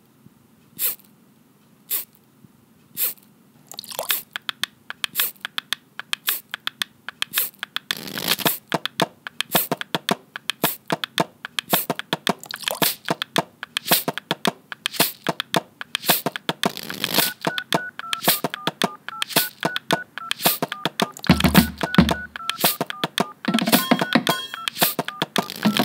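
Household objects played as a percussion jam: a plastic case tapped on a tiled floor about once a second, joined from about four seconds in by more players on plastic bottles, cards and containers in a denser clattering rhythm. About two-thirds through, a simple melody of high beeps comes in, and deep thumps from an upturned plastic bucket struck with a stick sound near the end.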